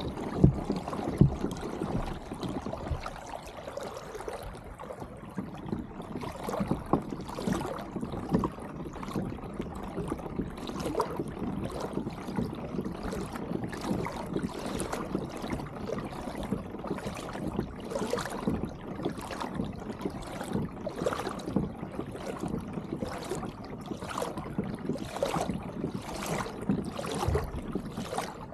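Water lapping and slapping against a kayak hull right by the microphone, with small splashes repeating more than once a second.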